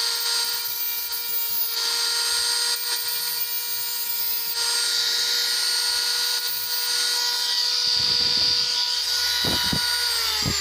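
Small high-speed rotary tool whining at a steady pitch, with a hiss as it cuts through component leads on a circuit board. Near the end it is switched off and winds down, the pitch falling.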